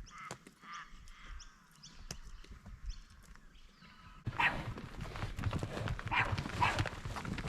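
Animals calling repeatedly: faint short calls at first, then louder calls in pairs over a rough background from about four seconds in.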